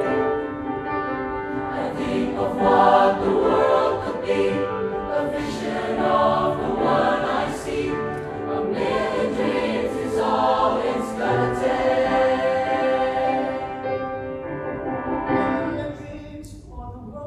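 High-school choir singing in parts, many voices holding sustained chords; the singing grows softer near the end.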